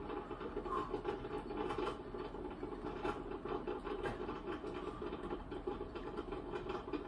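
A steady mechanical running noise, a low rumble with faint irregular clicks and rattles in it.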